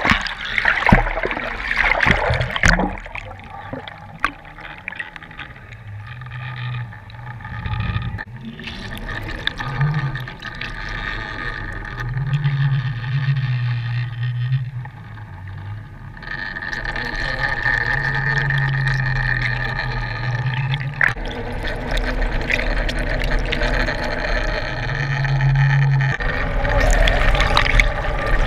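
Underwater sound of water rushing and bubbling past a towed camera, loudest in the first few seconds and again near the end, over the steady hum of a boat's engine carrying through the water, with a low drone that comes and goes several times.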